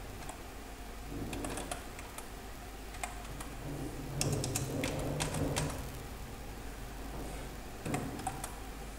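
Computer keyboard keystrokes, a few scattered clicks at a time with pauses between, as a terminal command is typed slowly.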